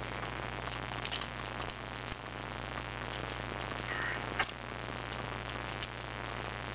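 A few light plastic clicks as small model railroad freight cars are handled and set on the track, over a steady electrical hum and hiss.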